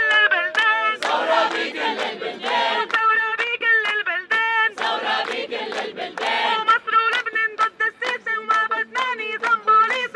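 Call-and-response protest chant: a woman's voice through a megaphone sings the lead line and a crowd sings back in chorus, twice, over a steady beat.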